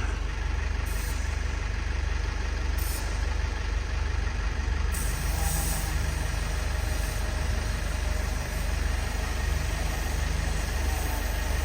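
Diesel engine of a GAZelle Next truck idling steadily with a low, even rumble.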